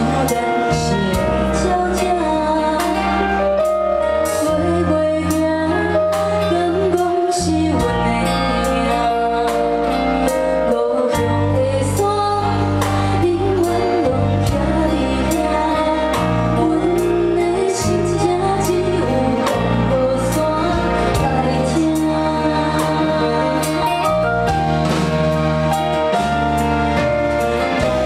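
Female singing over live band accompaniment, with sustained chords and a bass line that moves every second or so.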